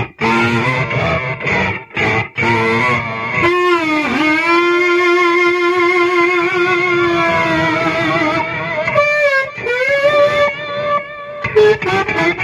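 Child's toy kazoo played through an acoustic-guitar contact pickup and a distorted guitar amp simulator with flanger, so it sounds like an electric guitar. Short separate notes open, then long held notes that bend and waver in pitch, a brief break about two-thirds of the way in, and more notes near the end.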